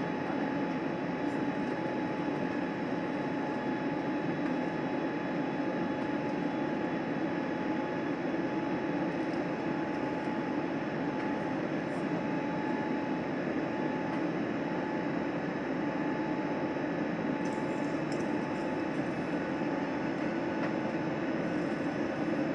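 Steady cabin noise of an Airbus A320neo climbing after takeoff: the drone of its Pratt & Whitney PW1100G geared turbofan and the rush of air, heard from inside the cabin over the wing. A thin, steady whine runs above the drone.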